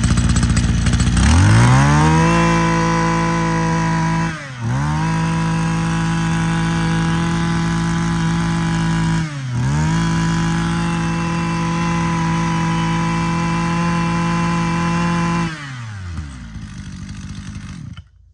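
Mitsubishi TL26 26cc two-stroke brush cutter engine running. It revs up to full throttle about a second in and holds a high, steady whine, with two brief throttle dips. Near the end it drops back to idle and cuts out.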